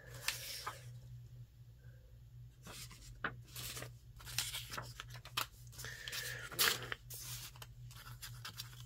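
Sheets of Florentine decorative paper rustling and sliding as they are handled one after another, in short irregular strokes, over a low steady hum.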